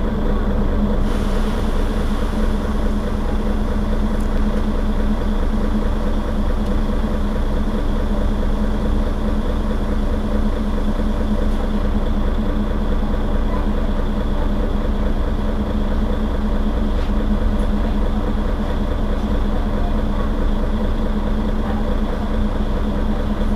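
Mercedes-Benz Citaro facelift city bus idling while standing still, heard from behind at the engine end: a steady engine drone with a strong, even hum.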